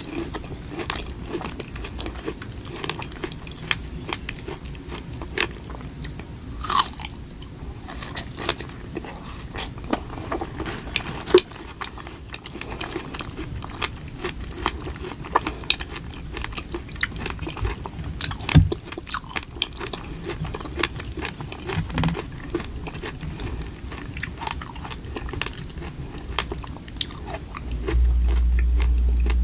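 Close-miked eating: repeated bites and wet, crunchy chewing of strawberry snacks, many small crackles and clicks. Near the end a steady low hum comes in and is louder than the chewing.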